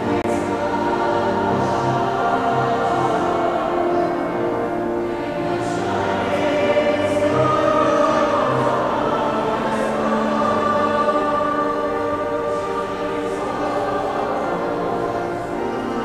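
Mixed-voice high school choir singing, holding long sustained chords.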